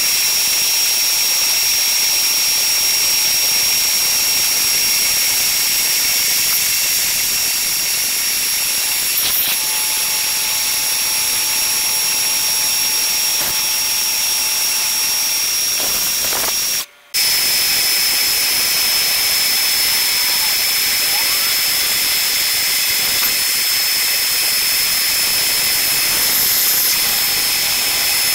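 Milling machine end mill cutting an aluminium block under flood coolant: a steady high-pitched whine over a hiss. It cuts out briefly about seventeen seconds in, then carries on.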